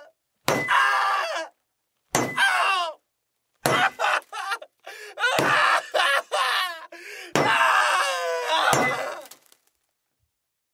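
A young man screaming and shrieking in about five loud, high-pitched outbursts without clear words: an acted mental breakdown.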